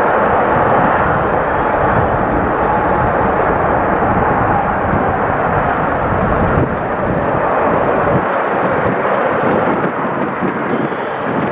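Airbus A380 landing on a flooded runway: a steady, loud rushing rumble that eases slightly near the end.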